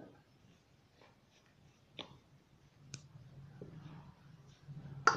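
A metal spoon clinking a few times against a steel bowl while stirring wheat flour and water into chapati dough, the loudest clink near the end. A low steady hum comes in about halfway through.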